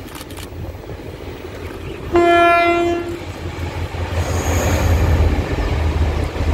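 Taiwan Railway diesel-electric locomotive sounding its horn: one multi-tone blast of about a second, about two seconds in. The diesel engine's low rumble and the running of the passenger train grow louder as it approaches and passes, with a faint high wheel squeal about four seconds in.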